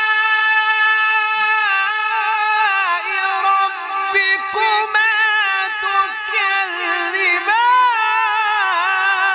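Qari's melodic Qur'an recitation in tajweed style: one high voice holding a long, ornamented line whose pitch wavers and curls, rising in an arching flourish near the end. It is amplified through a PA system.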